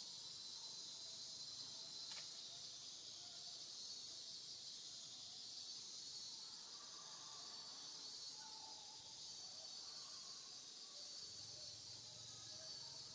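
Faint outdoor ambience: a steady high-pitched insect buzz that pulses gently, with a few faint chirps and a single soft click about two seconds in.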